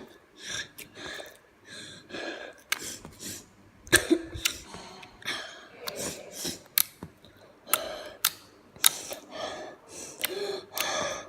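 A person's exaggerated heavy breathing close to the microphone, one breath after another, with short sharp clicks between the breaths.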